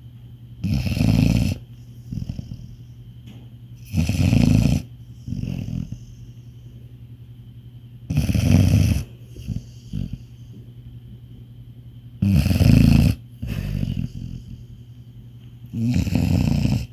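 Labrador retriever snoring in deep sleep: five loud snores about four seconds apart, each followed by a softer breath.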